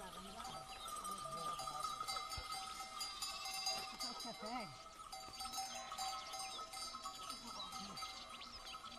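Many bells on a moving herd of goats ringing and jangling continuously, with goats bleating now and then, most clearly about four to five seconds in.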